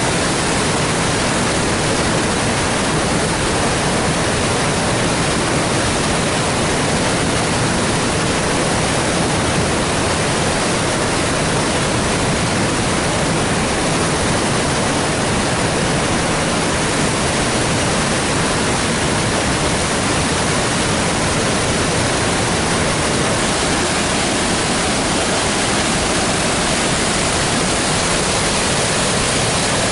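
Flood-swollen river rushing through rapids and cascades in a rock gorge: a loud, steady roar of whitewater that does not change.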